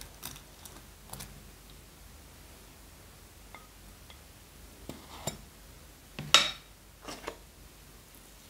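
Small metal Vaseline Lip Therapy tin and a plastic spatula being handled: scattered light clicks and taps, with a louder brief scrape about six seconds in as the tin's lid comes off.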